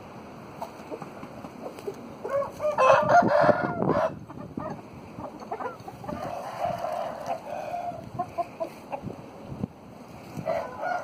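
Roosters crowing: a loud crow about two seconds in, quieter calls and clucking in the middle, and another crow starting near the end.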